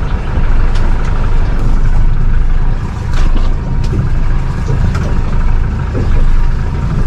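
Small fishing boat under way: a steady low engine rumble mixed with wind and water noise, swelling and easing in loudness.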